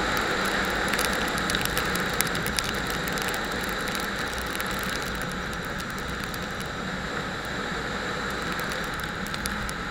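Motorcycle running on the move: a steady low engine drone under constant wind rush on the microphone.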